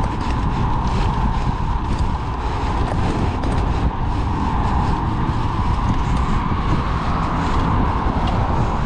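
Steady wind rumble on a GoPro Hero 8's microphone while riding a bicycle, with steady tyre and road noise under it.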